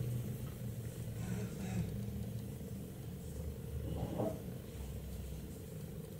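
Quiet, steady low hum with faint soft rustles of cotton yarn being worked with a crochet hook.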